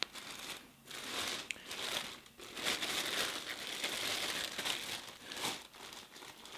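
Clear plastic bag crinkling on and off, with a few short pauses, as hands shift and turn a heavy statue wrapped inside it.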